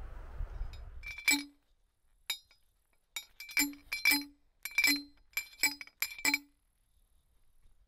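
A steel stake being pounded into the ground by hand, metal striking metal. About ten sharp ringing clanks, some in quick pairs, each with a short dull thud, starting about a second in after some low rumbling noise.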